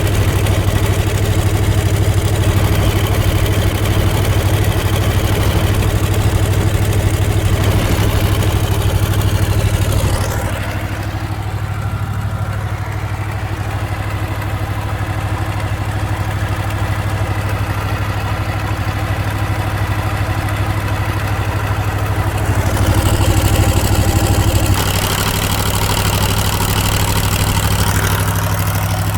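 Perkins naturally aspirated V8 diesel engine of a 95 kVA generator set running steadily at its governed 1500 rpm, with a strong even low hum. About a third of the way in the sound turns quieter and duller, and it grows brighter and louder again in the last few seconds.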